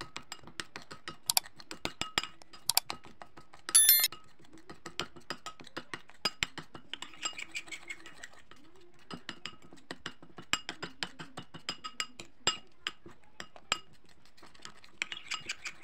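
Metal teaspoon stirring and scraping a toothpaste paste in a small ceramic bowl, with many quick light clinks of the spoon against the bowl. About four seconds in there is one louder, ringing clink.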